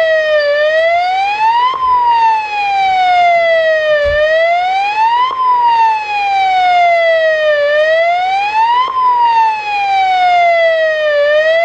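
Amseco VSD-208 voice siren driver sounding its electronic siren tone through a Simplex LifeAlarm speaker. The tone glides slowly down in pitch, then sweeps quickly back up, repeating about every three and a half seconds, between the spoken burglary messages.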